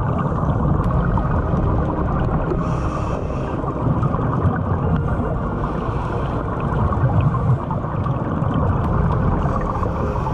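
Muffled, steady underwater rumble picked up through a waterproof action-camera housing, mixed with the bubbling of a scuba diver's regulator exhalations.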